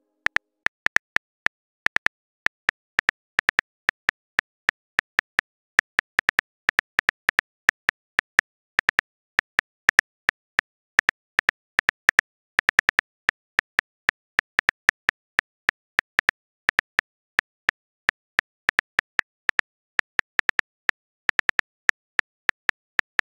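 Phone keyboard key clicks as a message is typed out letter by letter: short sharp ticks at an uneven pace, about three or four a second, with a few brief pauses.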